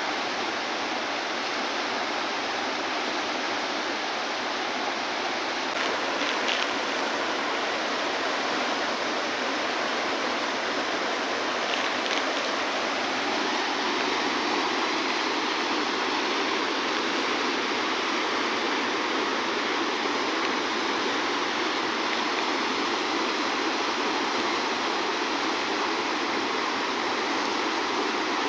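River water rushing in a steady, even flow.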